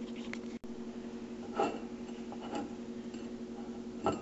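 A few short knocks of a paper napkin and hand against a ceramic plate as water is wiped off it, three in all with the last the loudest, over a steady low hum.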